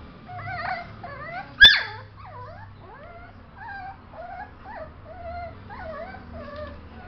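Yorkshire terrier puppy whimpering in a string of short, high, wavering whines, with one loud sharp yip about a second and a half in.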